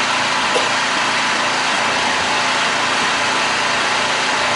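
Gas-engine pressure washer running steadily at idle, its trigger not pulled.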